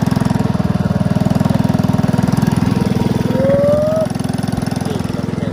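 Freshly repaired step-through motorcycle engine running steadily, a fast even putter, on its test ride. A short rising tone sounds about three and a half seconds in.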